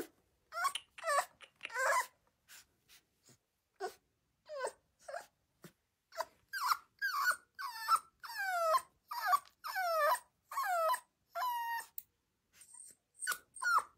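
Rottweiler puppy whining in a string of short cries, each falling in pitch, while its nails are clipped; a few cries come at first, then after a pause a quicker run of them in the second half.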